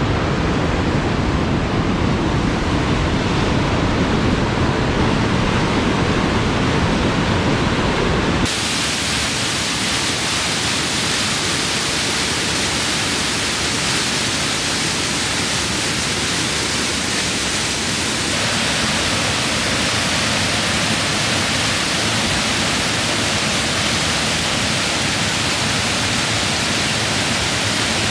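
Steady rush of Nevada Fall's falling water, an even wash of noise. About eight seconds in it changes abruptly to a brighter, hissier sound with less low rumble.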